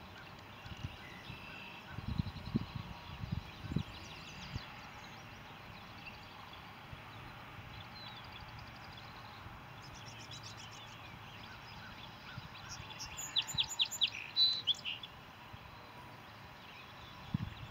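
Wild birds chirping, with scattered short calls and a quick run of rapid chirps about three-quarters of the way through. A few low thumps come about two to four seconds in.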